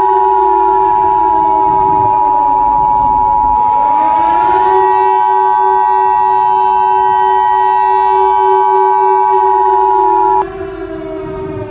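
Emergency Alert System two-tone attention signal, a steady dual tone of about 853 and 960 Hz, over a civil defense siren that wails: its pitch dips and winds back up about four seconds in. The attention tone cuts off suddenly near the end, leaving the siren going on more quietly.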